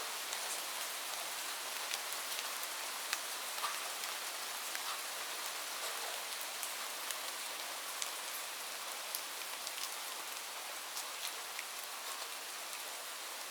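Light rain falling in a steady hiss, with scattered sharp ticks of single drops landing.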